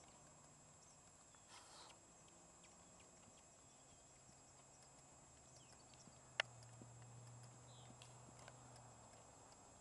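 Faint hoofbeats of a young Hanoverian horse trotting on arena sand, with one sharp click about two-thirds of the way in.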